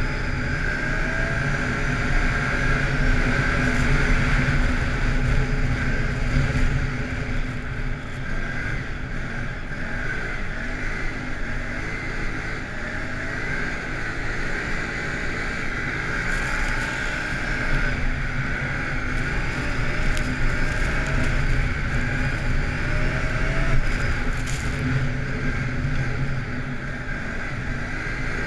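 Can-Am ATV engine running steadily at road speed, its pitch rising and easing off now and then with the throttle, with wind rushing over the microphone.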